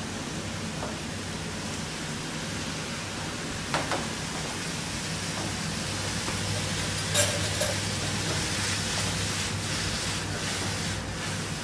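Steady hiss and low hum of a working kitchen, with two short clinks about four and seven seconds in.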